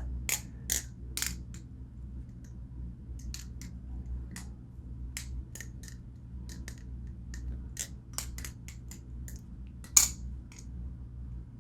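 Small irregular clicks and taps from a balisong (butterfly knife) and its rubbery weighted handle caps being handled and fitted, with one sharper click about ten seconds in, over a low steady hum.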